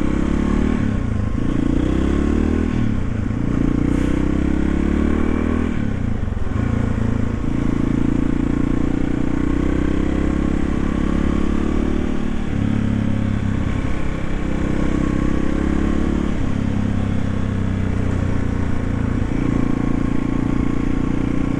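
1991 Yamaha XT350's single-cylinder four-stroke engine running while the bike is ridden, the revs dipping and climbing several times in the first seven seconds, then holding steadier with a few shifts in pitch.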